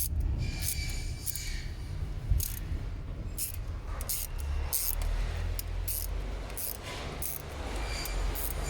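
Irregular light metallic clicks and scrapes of hand tools being handled, over a steady low rumble.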